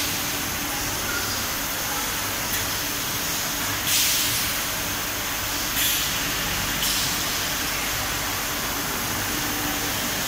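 Automatic filter assembly machine running: a steady hiss and low hum of machinery, broken by short, sharp bursts of compressed-air hiss about four, six and seven seconds in.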